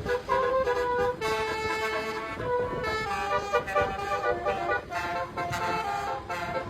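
Bus basuri (telolet) musical horn playing a tune: a run of held horn notes that step up and down in pitch.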